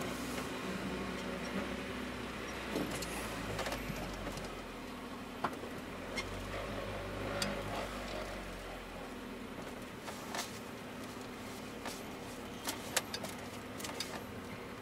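GAZelle light truck running at low speed, heard from inside the cab as a steady low engine hum. The deepest part of the rumble eases about two-thirds of the way in, and a few small clicks and knocks come near the end.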